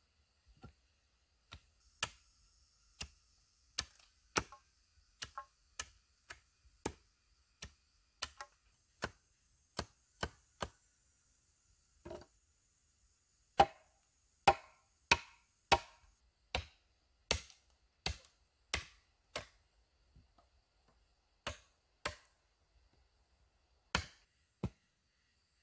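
Machete chopping wooden poles: a long run of sharp single blade strikes into wood, about one or two a second, with a short pause partway through.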